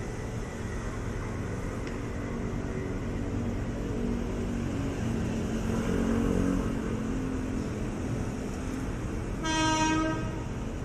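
Electric commuter train horn sounding once, briefly, near the end, over a steady low rumble that swells a little midway.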